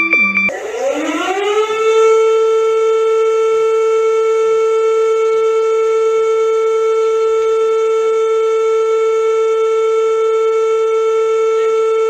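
Siren-style emergency alert alarm: a civil-defence siren tone that winds up in pitch over about a second and a half, then holds one steady wail with overtones for about ten seconds before cutting off abruptly. It starts about half a second in, as a different alarm of quick repeating falling tones breaks off.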